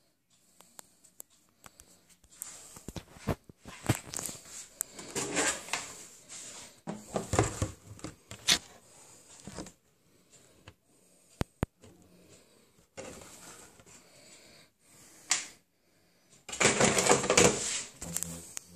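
Rustling and handling noise as clear plastic bags of spare parts are moved about, in irregular bursts, with scattered clicks and knocks. The longest, loudest burst of rustle comes near the end.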